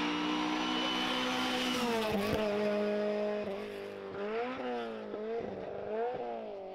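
Honda Integra hillclimb race car passing at full throttle on a high, steady engine note, which drops about two seconds in as it goes by. Then come several quick gear changes, the pitch falling and climbing again each time as it drives away.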